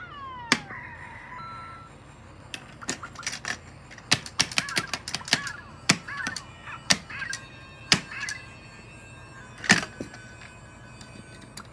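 Plastic Lego pieces knocked and tapped against each other and the tabletop course, a series of sharp clicks and thunks with the loudest near the end. Short electronic chirps and tones from the interactive Lego Mario figure's speaker are mixed in, beginning with a falling glide.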